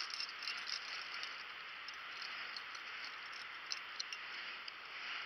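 Steady rush of a flowing creek, with scattered small clicks and rustles from handling on the bank, a couple of sharper ones a little before the end.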